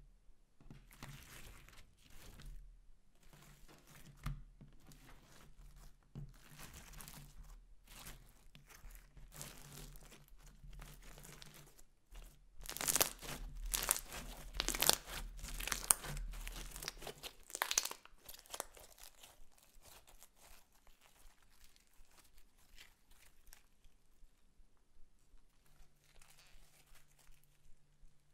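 Hands squishing and squeezing clear slime mixed with makeup and glitter, giving a run of small crackles and clicks. They grow loudest and densest about halfway through, while a ball of the slime is squeezed, then thin out.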